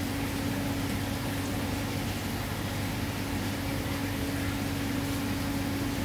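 Steady hum of fish-tank equipment, one constant low tone over an even hiss.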